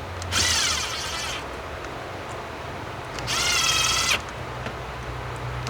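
Cordless impact driver run lightly twice, about a second each, its motor whine rising then holding as it runs the carburetor top-plate bolts down.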